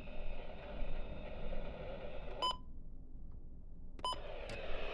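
Steady hiss of a weather radio broadcast between spoken lines. About halfway through, a short electronic beep cuts the audio to dead silence for about a second and a half, and a second beep brings the hiss back.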